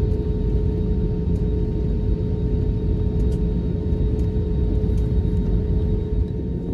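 Airbus A321neo cabin noise heard from a seat: a steady low rumble with a steady whine held throughout and a few faint ticks.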